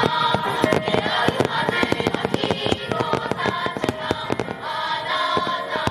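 Aerial firework shells bursting in rapid, irregular succession, a dense run of sharp bangs, with music playing underneath.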